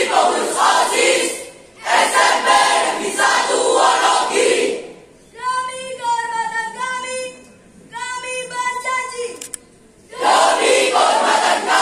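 Group of students reciting a pledge aloud in unison, call-and-response style. The group speaks two phrases together, a single voice gives the next lines alone from about five seconds in, and the group answers together near the end.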